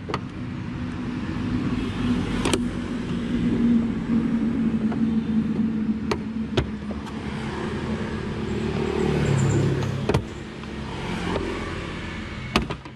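A motor vehicle's engine running steadily nearby, its hum dropping in pitch about two-thirds of the way through. Several sharp clicks over it, as plastic body-panel clips are pried loose with a flat screwdriver.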